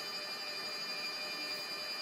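Steady whine of running shop machinery: several high tones held level, with no hammer blows.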